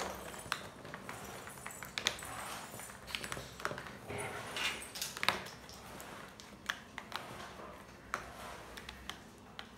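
Two Beyblade Burst tops, Mirage Fafnir and Turbo Valkyrie, spinning on a cardboard stadium floor with a steady faint whirring scrape, broken by sharp clacks at irregular intervals, about one a second, as they clash into each other.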